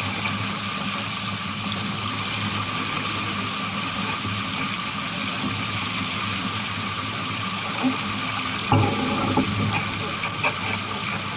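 Steady rush of water along a sailboat's hull while under way, over a low steady hum, with a few knocks about nine seconds in.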